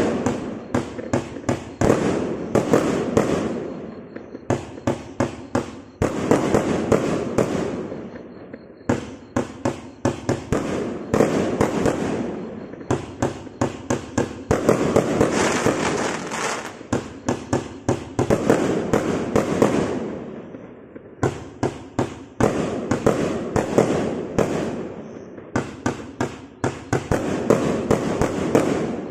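A 152-shot compound fireworks cake with 30 and 25 mm tubes, in a straight-and-fan pattern, firing in rapid runs. Quick sharp launch reports come several a second over a dense hiss from the shots, with brief pauses between runs.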